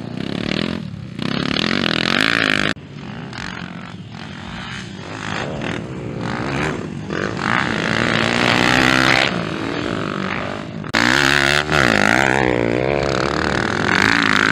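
Four-stroke motocross dirt bike engines revving hard, their pitch rising and falling as riders accelerate and back off. The sound changes abruptly a few seconds in and again about three-quarters through, where one shot of a bike gives way to another.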